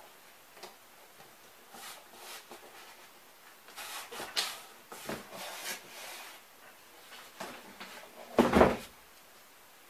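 Hands rubbing and smoothing paper strips onto a cardboard unit: a run of soft rustles and scrapes. Near the end comes one loud thump as the large cardboard unit is tipped over and set down.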